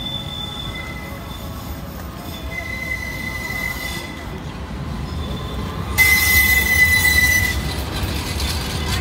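Street tram running past on its rails with its steel wheels squealing. A steady high squeal sets in about two and a half seconds in and gets much louder, with a rush of noise, about six seconds in, over a low rumble.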